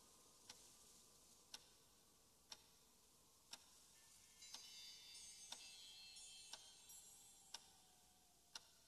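Faint clock ticking, one tick a second, with faint high-pitched tones coming in about halfway through.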